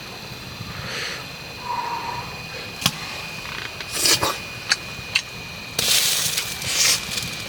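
Someone eating a hot dish: a few sharp clicks of a utensil against the dish, and noisy hissing bursts from about two-thirds of the way through, likely blowing on or slurping the hot food.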